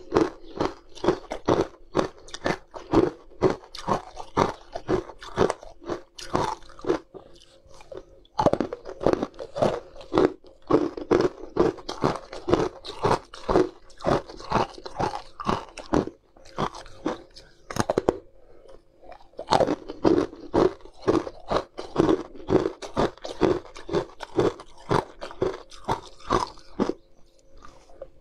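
Crunching and chewing of frozen blue ice shapes dusted in powder: runs of quick crisp bites, several a second, with two short pauses, about a quarter and about two-thirds of the way through.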